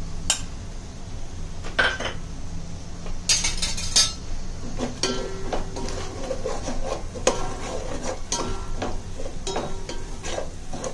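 A spoon stirring and scraping in a pan of frying onion masala, clinking irregularly against the metal with short rings.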